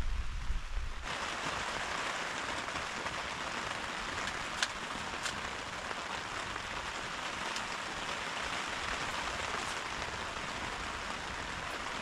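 Steady heavy rain falling as an even hiss, with a few single drops ticking out near the middle. A low rumble fills the first second, then the rain sound comes in suddenly.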